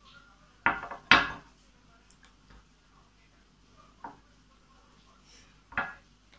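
A small glass bowl being handled and set down, giving a few sharp clinks and knocks. Two come close together about a second in, the second of them the loudest, followed by a softer one and another near the end.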